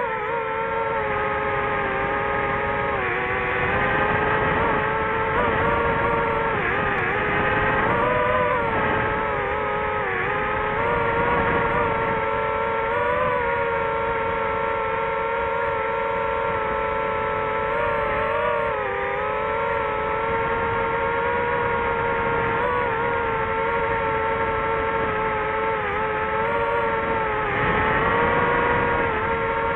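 DJI FPV drone's motors and propellers running in flight: a steady, high, pitched hum whose pitch dips and rises slightly every few seconds as the drone manoeuvres.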